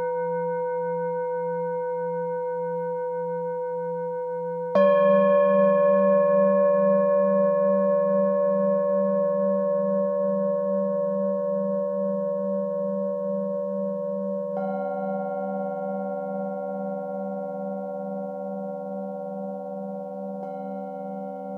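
Metal singing bowls struck one after another with a mallet, their long ringing tones overlapping and fading slowly with a steady wavering beat. A loud strike comes about five seconds in, another about fifteen seconds in, and a softer one near the end.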